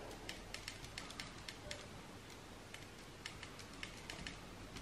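Faint, irregular small clicks and ticks of fingertips pressing a flower down onto a tacky ink-rolled printing plate by hand, several a second with a short pause about halfway through.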